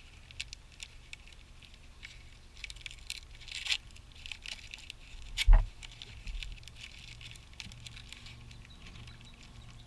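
A package being opened by hand: scattered light clicks and rustles of packing material, with one heavy thump a little over halfway through.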